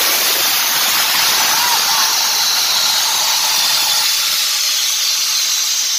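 Loud, steady hiss of compressed air escaping from a truck's air system beside the air-suspension bag, its lower part dropping away about four seconds in.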